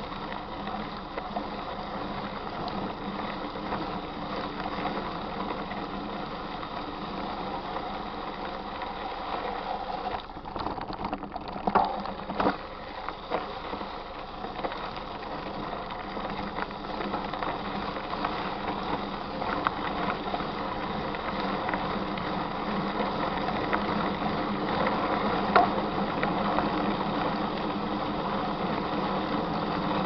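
Mountain bike rolling over a dirt road: a steady rattle of tyres on loose gravel and the bike jolting, with a few sharp knocks from bumps about twelve seconds in and again near the end.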